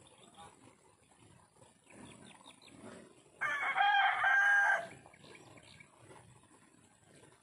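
A single loud animal call, held for about a second and a half near the middle, over faint background noise.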